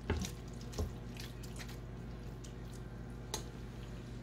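Cooked mini bow tie pasta spooned into a pan of creamy pesto sauce: a few scattered soft wet plops and spoon clicks over a faint steady low hum.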